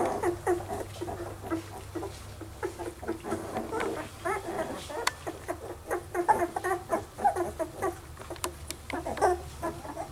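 Young red standard Poodle puppies squeaking and whimpering: many short, high cries one after another.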